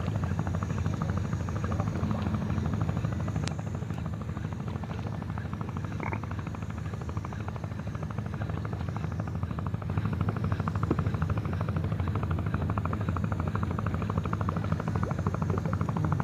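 Boat engine running with a rapid, steady chugging pulse, a little louder from about ten seconds in.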